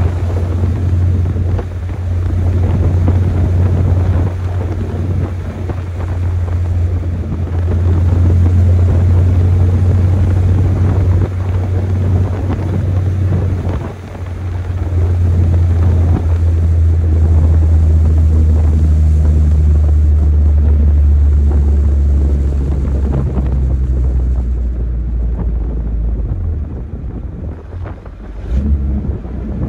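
Chevrolet S10 pickup's stock four-cylinder engine running hard on the move, a loud steady drone with wind noise over it. It eases off briefly about halfway through and again near the end, then picks back up.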